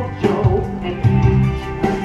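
Upbeat pop-rock show music in an instrumental dance break, with guitar over a heavy bass line and sharp drum hits just after the start and near the end.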